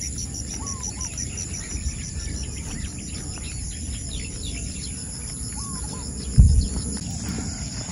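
Countryside ambience of insects and birds: one insect chirps in a quick even pulse of about five a second over a steady high insect drone, with scattered short bird chirps. A low rumble runs beneath, and a loud low thump comes about six and a half seconds in.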